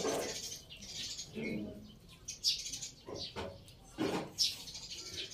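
Small birds chirping in short, scattered calls, a handful of times across a few seconds.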